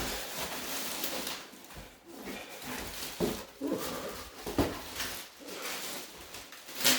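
Packaging being handled during an unboxing: rustling and scattered knocks. A sharp crackle near the end is the loudest sound.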